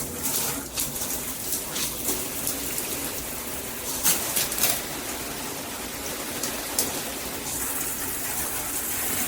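Water running from an AMORIX shower head and splashing down: a steady rush of spray with scattered sharper spatters.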